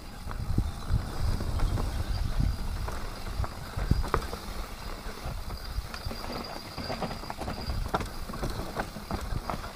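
Mountain bike descending a dirt forest singletrack: a low rumble of the tyres and bike over rough ground, with frequent sharp rattles and knocks from the bike.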